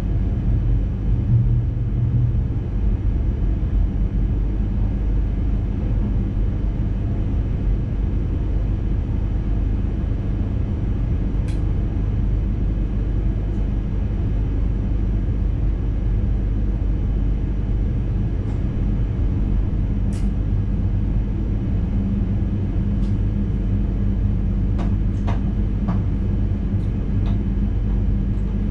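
Steady low rumble of an NS intercity train running along the track, heard from the driver's cab, with a few scattered sharp clicks, most of them near the end.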